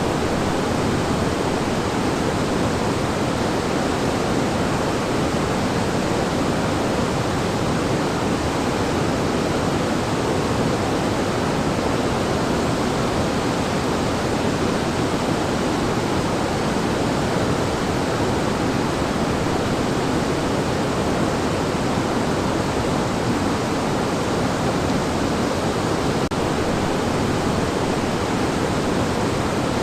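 River water rushing steadily: an unbroken rumble of flowing water that neither rises nor falls.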